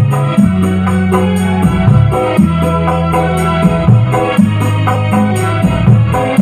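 Music played loudly through a home-built power amplifier and speaker cabinet under test: long held bass notes that change pitch about every second, over keyboard notes and a quick steady shaker-like beat.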